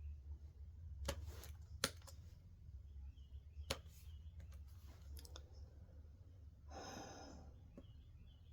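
A few scattered sharp clicks, then about seven seconds in a short breathy exhale like a sigh from a person, over a low steady hum.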